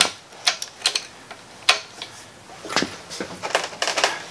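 Irregular metallic clicks and clinks of hand tools and sockets on the cylinder head bolts of a Ford Model T engine, a sharp click every half second or so, coming quicker in the second half.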